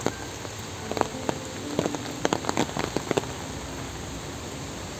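Steady rain falling, with a cluster of sharp, close drops tapping between about one and three seconds in.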